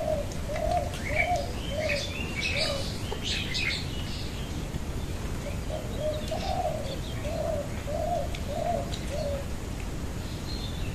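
A dove cooing in a run of short, evenly spaced notes, about two a second. The coos pause for a few seconds midway and then start again, while small birds chirp over the first part.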